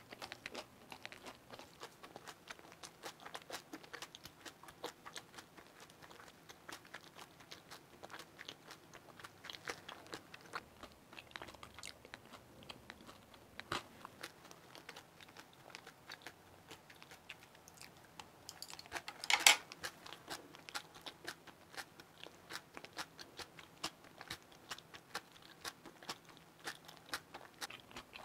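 Close-miked chewing of crispy Korean chive pancake (buchu-jeon) and kimchi: a steady run of small crunches, with one louder, brief crunch about two-thirds of the way through.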